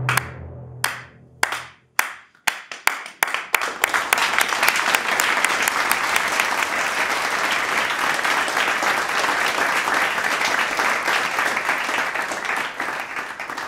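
Audience applause: a few single claps that quickly multiply into full, steady applause, which begins to thin out near the end. A low held note from the film's closing music dies away in the first couple of seconds.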